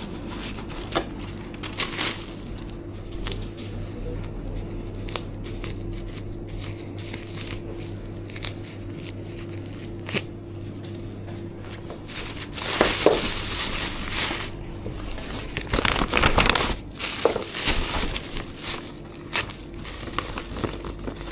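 Plastic packaging crinkling and rustling in two spells of bursts, as a takeaway order is bagged up, over a steady low electrical hum with scattered small clicks.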